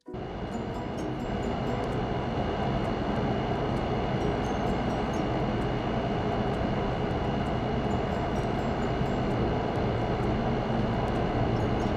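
A steady, even mechanical drone with a faint high whine, starting abruptly at the beginning and holding level throughout, with a few faint high chirps over it.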